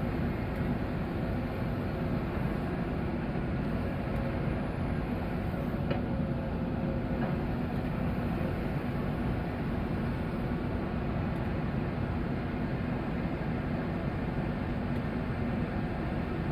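Komatsu excavator's diesel engine running steadily, an even low rumble with no change in speed.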